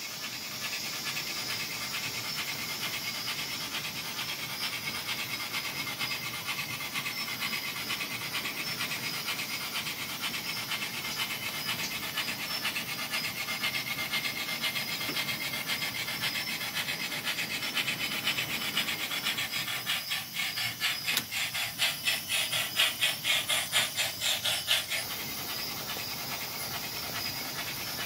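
Sound system of an MTH model four-truck Shay steam locomotive, giving a rapid, steady chuffing with hiss as the train runs. About twenty seconds in, the chuffs grow louder and more pulsing for a few seconds, then settle back.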